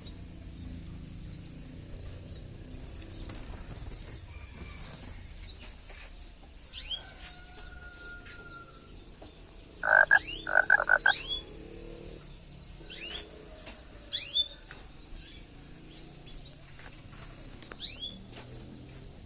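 Canary giving sparse, short, high chirps that sweep downward, spaced a few seconds apart, with a brief whistled note shortly before a loud, quick run of about five short notes about ten seconds in.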